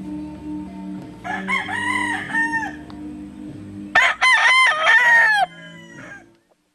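A rooster crowing twice, the second crow louder, over soft background music that fades out at the end.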